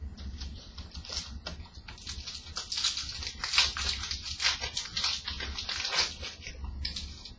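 Crinkling, crackly rustling of a trading-card pack's foil wrapper being handled and torn open, densest in the middle of the stretch.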